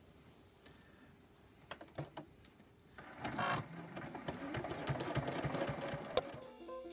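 Domestic sewing machine fitted with a free-motion embroidery foot: a few light clicks, then about three seconds in the machine starts and runs fast in a continuous rapid rattle as it stitches through the layered fabric.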